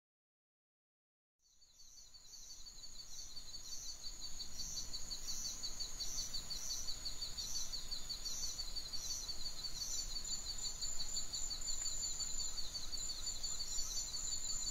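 Silence, then a night-time ambience fades in about a second and a half in: crickets chirping in steady, rapidly pulsing trills, over a low background hum.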